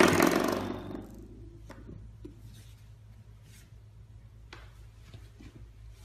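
A coiled-spring door stop on a baseboard, flicked by a puppy, buzzing and dying away over about the first second. After that there are only a few faint taps.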